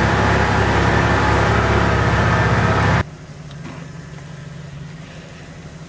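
Loud, steady engine and drivetrain drone from inside an off-road vehicle driving a muddy trail. About three seconds in it cuts off abruptly, leaving a much quieter steady low engine hum.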